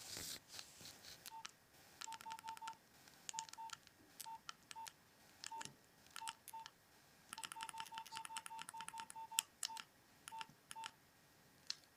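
Nokia 3510 mobile phone keypad being pressed: each key press gives a click and a short single-pitched beep. The presses come singly and in quick runs of several, with pauses between.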